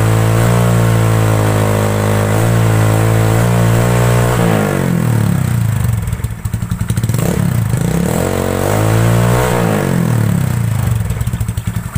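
Yamaha Mio Sporty scooter's single-cylinder four-stroke engine running through an open exhaust pipe, revved and held high for about four seconds, then dropping back toward idle. A short blip and a second rev of about two seconds follow, before it settles into a pulsing idle near the end.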